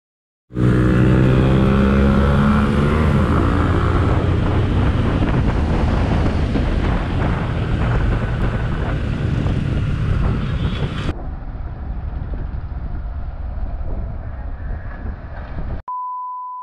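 Motorcycle engine starting after a brief silence and accelerating, its pitch rising over the first few seconds, then running steadily with wind rushing over the microphone. About two-thirds in, the sound drops suddenly to quieter engine and road noise. Near the end comes a steady one-tone beep lasting about a second.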